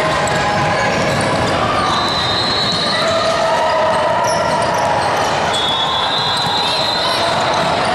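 Basketball game sounds: a ball bouncing on the court against a steady background of players' and spectators' voices.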